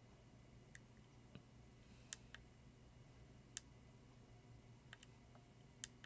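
Faint clicks of the BETAFPV Micro 1W ELRS transmitter module's joystick button being pressed to step through its screen menu, about eight clicks at uneven intervals.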